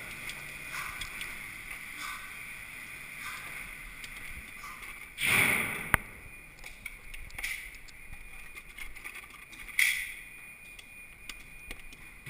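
Two gunshots about four and a half seconds apart, each a sudden loud report that dies away over about half a second, with a sharp click between them.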